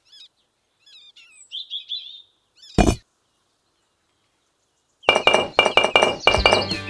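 Birds chirping, with a sharp crash a little under three seconds in. From about five seconds a fast run of loud, ringing clinks begins.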